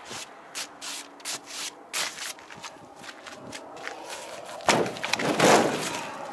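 Footsteps crunching on icy ground, then about four and a half seconds in a sharp clack as the rear door latch of a frosted GAZelle cargo body is released, followed by a loud scraping rub as the door is swung open.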